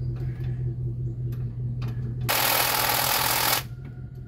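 Milwaukee cordless power tool running in one burst of about a second and a half, starting a little past halfway and cutting off suddenly, as it backs out a bolt on the AC compressor. A steady low hum sits underneath.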